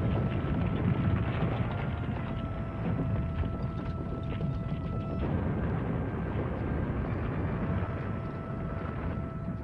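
Continuous low rumbling of battle sound effects, a dense bed of distant explosions and gunfire, with a thin held tone over it that shifts pitch a few times.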